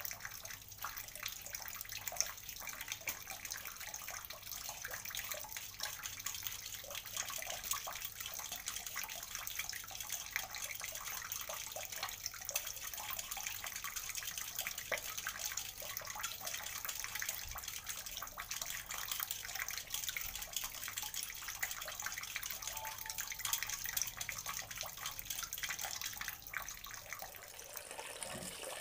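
Steady rush like running water, with many small scraping clicks from a hand peeler shaving skin off raw potatoes.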